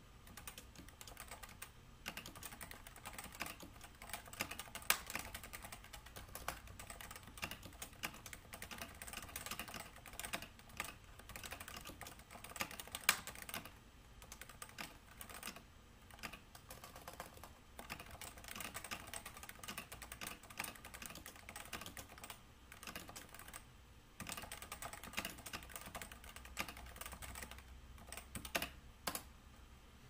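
Typing on a Cooler Master CMStorm Novatouch TKL keyboard with Topre hybrid capacitive switches of 45 g uniform weighting. A steady run of keystrokes with a few short pauses, and a couple of louder key hits.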